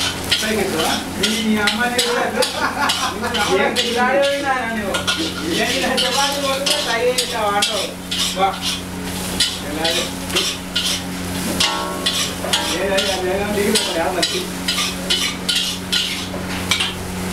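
Metal spatula scraping and tapping against a wok in quick, repeated strokes as rice is stir-fried, with frying sizzle underneath.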